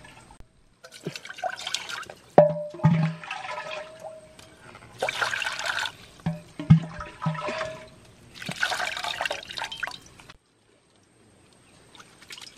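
Water splashing and pouring in several bursts, with a few knocks in between; the sound cuts off abruptly about ten seconds in.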